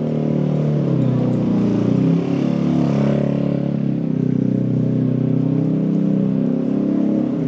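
A motor vehicle engine running close by, a steady low hum.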